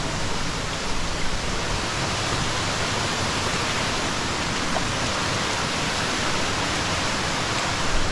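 Steady rush of the Dabašnica river's flowing water, an even hiss-like roar with no breaks.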